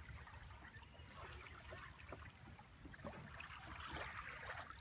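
Faint water trickling and splashing from a kayak paddle dipping and dripping in calm, shallow water. A soft hiss of water swells about four seconds in, over a steady low rumble.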